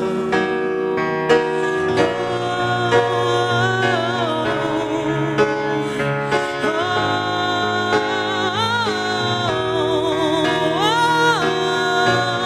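A woman singing long, wavering notes that glide up and down, into a microphone over grand piano chords.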